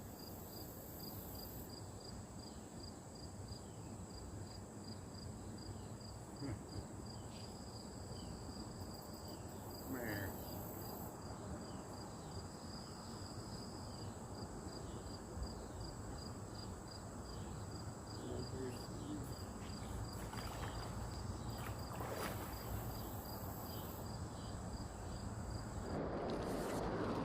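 Insects calling: an even train of short, high chirps, about three to four a second, over a continuous high-pitched buzz, against a low background rush.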